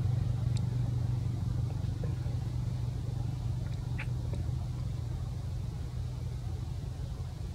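Steady low engine-like rumble, with a few faint clicks and one short high squeak about four seconds in.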